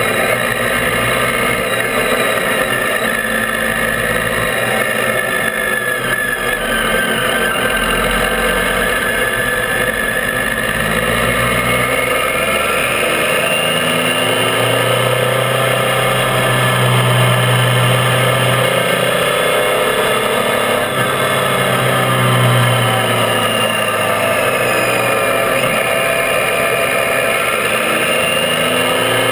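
Triumph Tiger 800's three-cylinder engine running under way, its pitch rising and falling as the bike speeds up and slows, over a steady hiss of wind and tyre noise.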